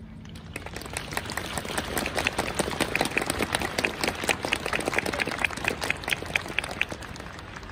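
Crowd applauding: many hands clapping that swell up about half a second in and die away near the end.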